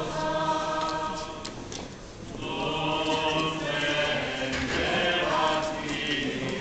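Many voices of a procession singing a slow religious hymn together, with long held notes; the singing drops away about two seconds in and then resumes.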